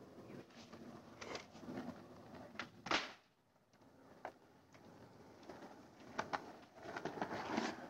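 Skateboard knocks and clacks with wheels rolling on an asphalt court: a few sharp knocks, the loudest about three seconds in, followed by a brief near-silent gap.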